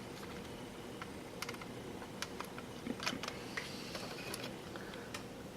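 Faint, scattered small clicks and light scraping as a smooth-cut file and small plastic kit parts are handled.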